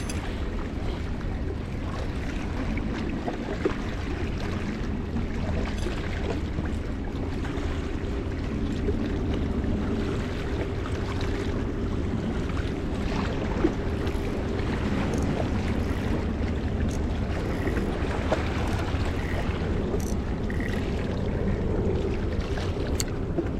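Steady seaside wind and water noise, a constant low rumble. A faint hum runs underneath for much of the time, and a few light clicks sound here and there.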